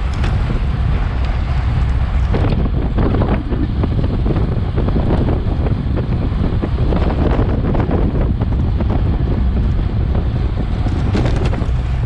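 Wind buffeting the microphone of a Garmin Virb action camera on a moving bicycle, a steady loud rumble broken by frequent short crackles.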